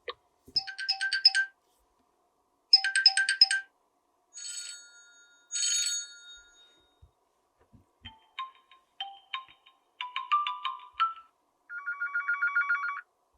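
A Huawei Mate 20 Lite phone plays a string of its preset ringtones one after another through its speaker. There are about five short electronic chime melodies with brief silences between them. The last is a fast, evenly repeating run of notes.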